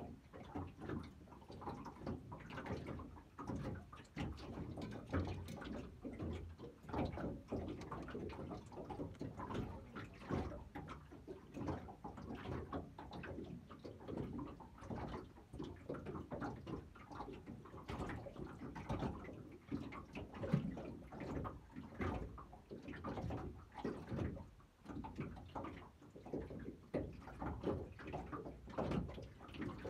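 Water lapping and slapping against a small boat's hull in a steady, irregular stream of small splashes.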